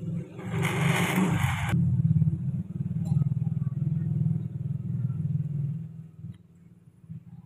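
A small engine running with a low, rough drone that swells about a second in and fades out about six seconds in, with a brief hiss about a second in.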